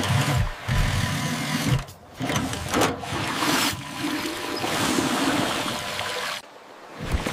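Water gushing and splashing as it pours from a fire hydrant into a bucket, over background music.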